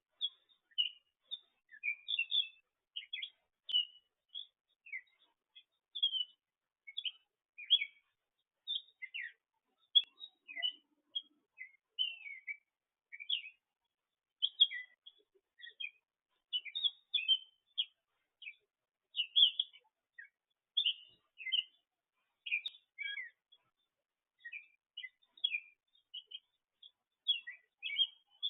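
Small songbirds chirping and singing: a steady run of short, quick high notes, several a second with brief gaps between.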